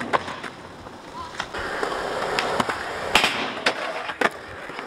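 Skateboard rolling on concrete, with several sharp clacks as the board strikes the ledge and ground. The loudest clack comes about three seconds in.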